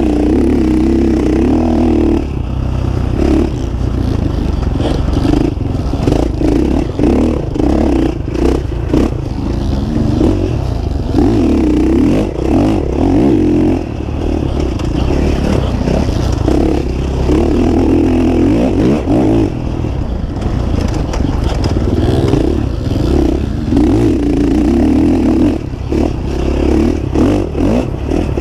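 Dirt bike engine heard from the bike itself, repeatedly revving up and easing off with the throttle and gear changes, with short knocks and rattles from the bike over the rough trail.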